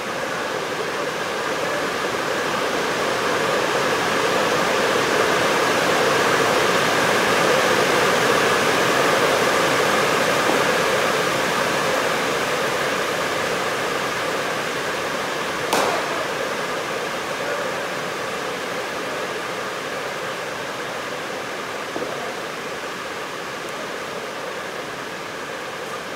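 A steady rushing noise that swells slowly and then eases off, with faint steady hums in it. A single sharp crack cuts through about sixteen seconds in, and a fainter knock comes a few seconds later.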